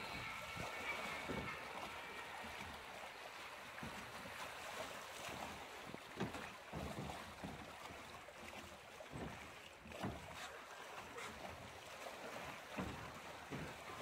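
Water rushing along a log-flume channel as the ride boat moves through it, with wind on the microphone and irregular soft thumps about 6, 10 and 13 seconds in.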